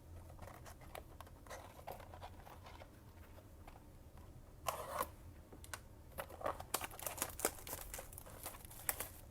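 Faint crinkling and tearing of a trading-card pack wrapper, with small clicks and ticks of cards being handled, busiest in the second half.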